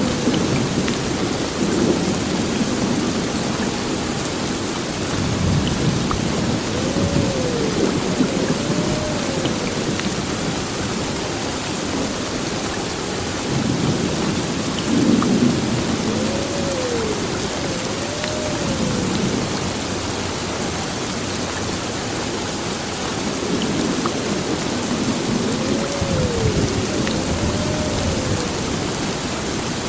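Heavy rain pouring steadily, with thunder rumbling again and again underneath it in rolling swells.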